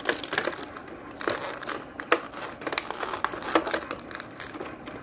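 Toy packaging crinkling and crackling as it is handled and opened, in irregular crinkles with a few sharper snaps.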